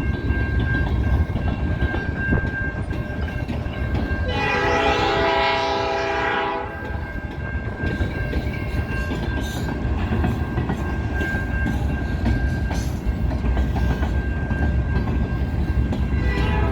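CN freight train rolling past with a continuous rumble of wheels on rail and scattered clacks. The locomotive horn sounds once, about four seconds in, for roughly two and a half seconds.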